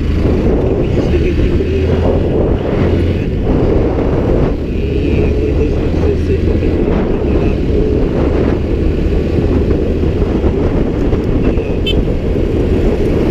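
Steady vehicle noise: a loud low rumble with a constant low hum, as from riding along a road.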